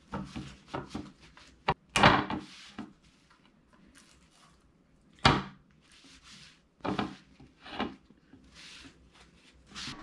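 Paper towel dabbing and rubbing on raw steelhead trout fillets on a platter, broken by a few sharp knocks and thuds as the fillets and platter are handled; the loudest come about two seconds in and about five seconds in.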